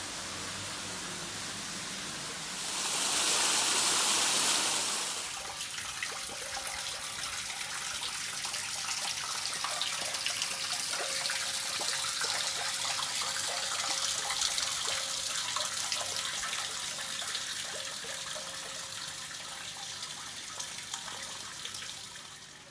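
Water pouring from a hanging-bucket fountain and splashing steadily into a brick basin. A louder rushing noise swells for about two seconds a few seconds in.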